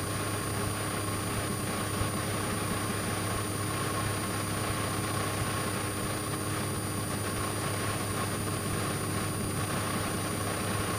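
Steady cabin drone of a Piper Cherokee's single piston engine and propeller in level flight, unchanging in pitch and loudness.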